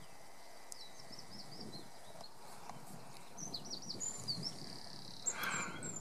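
Small birds singing in phrases of quick, high chirps over a faint steady outdoor background, with a short burst of noise near the end.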